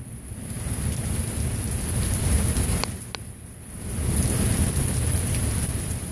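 Heavy thunderstorm: rain pouring down under rolling thunder that rumbles almost without a break. The rumble swells over the first couple of seconds, drops away briefly about halfway through, then builds again. Two sharp ticks sound just before the dip.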